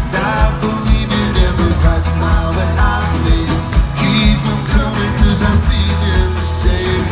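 Live folk-rock band playing: acoustic and electric guitars, fiddle and accordion over bass and a steady drum beat.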